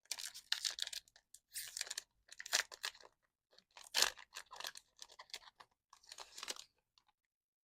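A foil Magic: The Gathering play booster wrapper being torn open and crinkled in the hands: a run of irregular crackling rustles that stops near the end.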